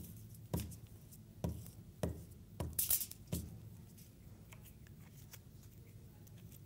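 Glue stick pressed and rubbed across a sheet of paper on a tabletop, giving about six soft knocks over the first three and a half seconds. After that, only a few faint small clicks as the glue stick is handled.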